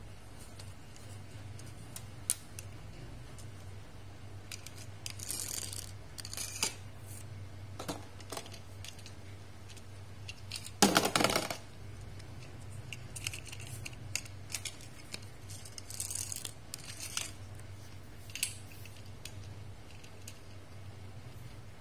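Small toy cars being handled and set down on a hard table top: scattered light clicks and scrapes, with one louder rattle lasting about a second near the middle, over a faint steady low hum.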